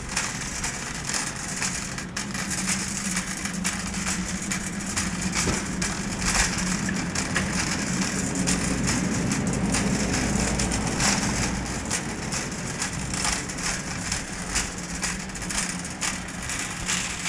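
Wire shopping cart pushed over a hard store floor: wheels rolling and the basket rattling steadily, over a low steady hum.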